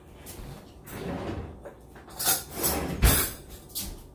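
Potatoes and broccoli being mixed with olive oil in a baking tray: irregular rustling and scraping, with a sharp knock about three seconds in.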